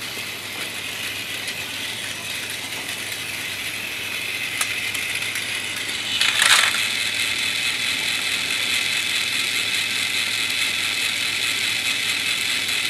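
Battery-powered Plarail toy train running on plastic track, its small motor and plastic gears making a steady whirring, clicking rattle. It gets a little louder about six seconds in, with one sharp clack.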